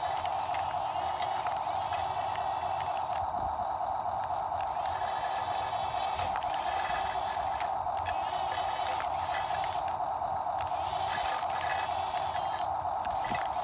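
Steady whine of a radio-controlled toy wheel loader's small electric motor and plastic gearbox as it drives and pushes snow, with a higher gear buzz that cuts in and out several times.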